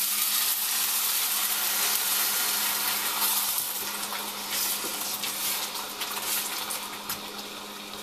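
Tomato sauce poured from a can into hot oil with fried onions and spices, sizzling and spattering in the pan, the sizzle fading gradually as the sauce goes in, with a wooden spoon stirring.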